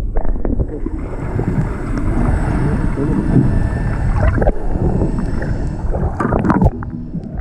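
Boat on the water, with a steady low rumble and wind buffeting the microphone. A few sharp knocks come about two-thirds of the way through.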